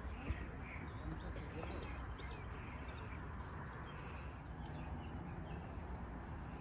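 Outdoor ambience: small birds chirping intermittently over a steady low background rumble.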